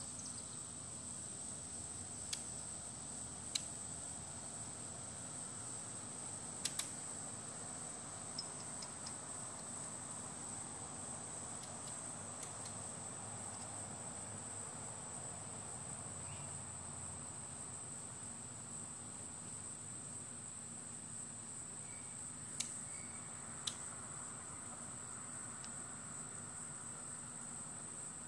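Steady, high-pitched trilling of crickets, with a handful of sharp clicks scattered through it: a few in the first seven seconds and two more near the end.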